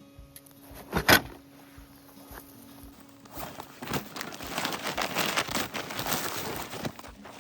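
Footsteps crunching over rough ground for a few seconds in the second half, after a sharp double knock about a second in.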